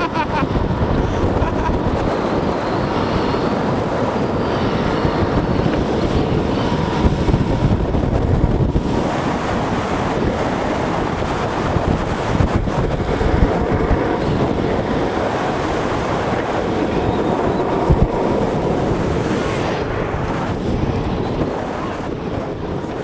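Steady rush of wind buffeting the microphone at speed during a downhill skateboard run, with a few short knocks along the way.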